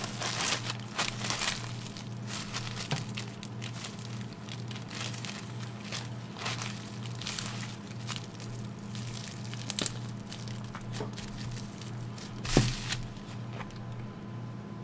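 Food wrapping crinkling and rustling as hands crumple and fold it on a kitchen counter, with scattered small clicks and taps. There is one louder thump about three quarters of the way through, over a low steady hum.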